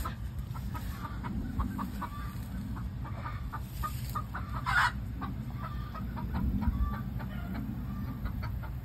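Chickens clucking with many short, separate calls, one louder call about five seconds in.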